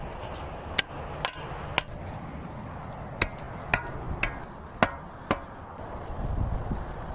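A metal shovel blade slapping and tamping packed dirt to shape a jump: about eight sharp strikes, three, then after a pause five more about half a second apart.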